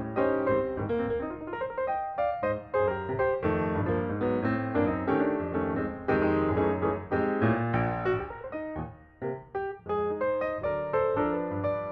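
Background piano music, a steady flow of struck notes and chords.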